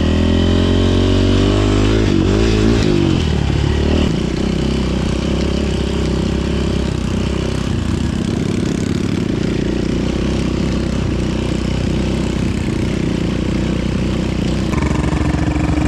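KTM dirt bike engine revving, climbing in pitch over the first few seconds, then dropping back and running steadily as the bike rides; the pitch steps up again near the end.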